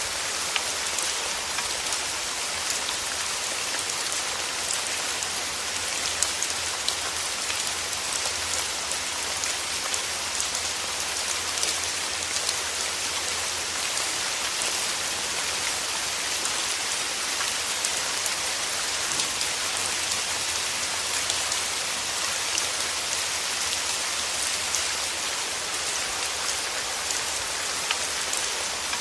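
Steady rain falling: a dense, even hiss with many small drops ticking through it.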